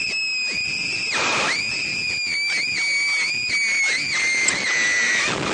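A slingshot-ride passenger screaming in terror: one long high-pitched scream, a short break about a second in, then the scream resumes and turns into a run of short wavering yelps before it stops near the end.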